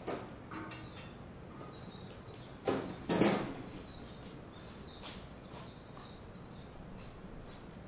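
Small birds chirping and calling in short, high, sliding notes over a steady outdoor background hum, with a brief loud rush of noise, twice in quick succession, about three seconds in.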